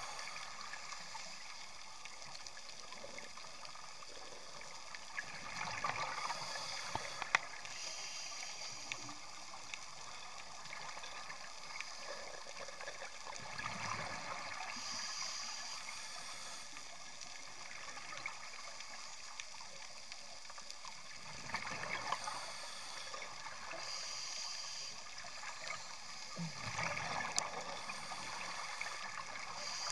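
Scuba divers breathing through regulators underwater: exhaled bubbles gurgle out about every seven seconds, with a hiss of inhaling through the regulator between them and a few sharp clicks.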